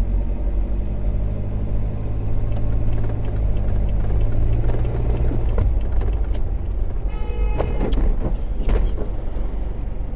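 Inside a car in slow traffic: the engine running with a steady low rumble, and a car horn sounding briefly about seven seconds in.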